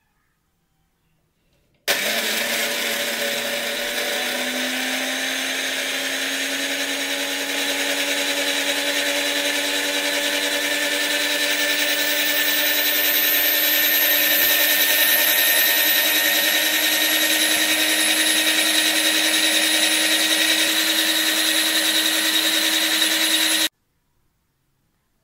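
Countertop electric blender running, blending sliced apple, banana, milk and honey into a smoothie. It starts suddenly about two seconds in, rises in pitch over the first few seconds as it gets up to speed, holds a steady hum that grows slightly louder, then cuts off abruptly near the end.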